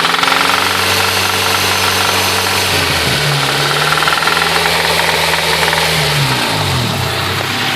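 Honda B16A inline-four engine running with a knocking noise, its revs held up, dropping and climbing again about three seconds in, then falling near the end. The owner suspects a spun bearing.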